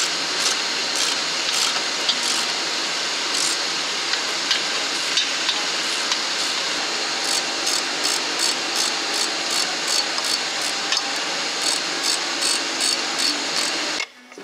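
Hand ratchet wrench clicking in quick repeated strokes as bolts are run down on a Scania V8 diesel engine during assembly, over a steady workshop hiss. The clicks come about two to three a second in the second half, and the whole sound cuts off suddenly near the end.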